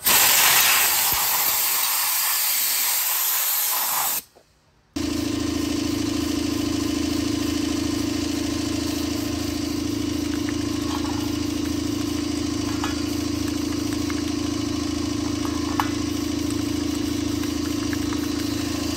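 Hose-fed sandblasting gun hissing as it blasts rust off a steel headlight bucket, cutting off about four seconds in. After a brief gap, a steady machine hum runs on with a few faint ticks.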